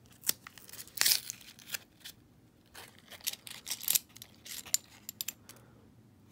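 Half-dollar coins clicking against one another and a paper coin-roll wrapper being torn and crinkled, in a string of sharp clicks and short rustles.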